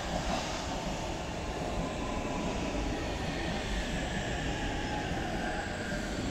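Oslo Metro train pulling into the station past the listener: a steady rumble of wheels on rail with a faint electric whine that slides in pitch.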